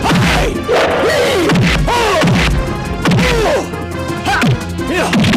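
Film fight-scene punch sound effects: a rapid series of loud hits, each with a short swooping fall in pitch, over background music.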